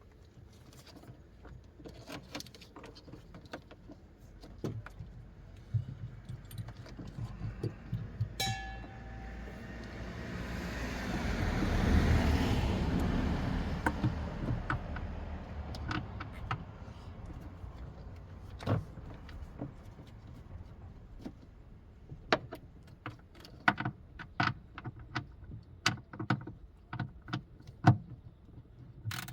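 Scattered clicks, clinks and knocks of tools and metal parts being handled while working on a jet ski's ignition coil, with a short ringing metallic clink about eight seconds in. In the middle a vehicle passes, rising and fading over about four seconds.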